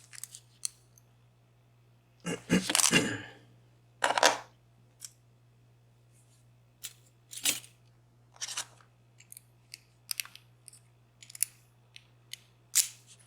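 A lock and small metal tools being handled: a series of sharp clicks and short rattling scrapes, the loudest about two to three seconds in and again around four seconds.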